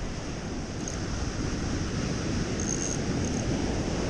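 Surf washing on the beach with wind buffeting the microphone: a steady, even rushing noise with a few faint, brief high chirps.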